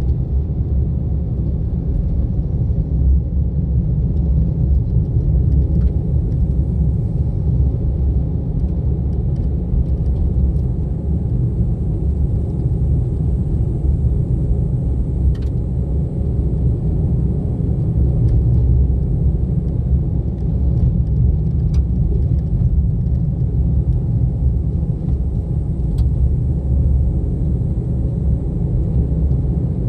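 Car driving along a forest road: a steady low rumble of engine and tyre noise, with a few faint ticks scattered through it.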